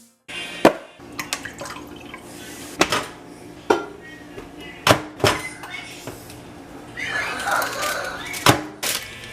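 Household clatter: objects such as dishes or containers being handled and set down, giving about half a dozen sharp knocks. A short rush of noise comes near the end.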